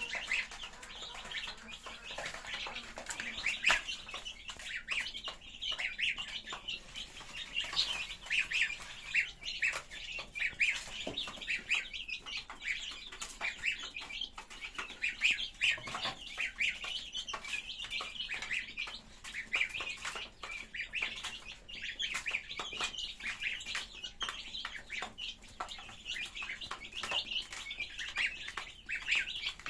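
A flock of birds chirping constantly, many short overlapping calls with no break, with short sharp clicks mixed in among them.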